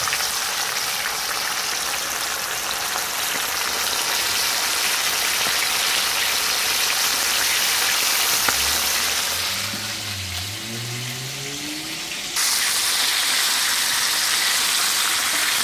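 Flour-coated chicken pieces deep-frying in hot oil in a skillet, a steady crackling sizzle. Near the middle the sizzle drops a little and a faint low tone rises in pitch, then the sizzle comes back abruptly louder.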